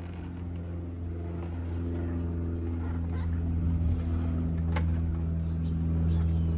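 Low, steady mechanical drone of an aerial tram's cable and running gear that grows gradually louder, with a single click about five seconds in.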